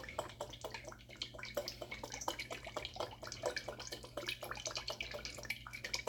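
Cooking oil crackling and popping in a pot on high heat: many small irregular pops, over a low steady hum.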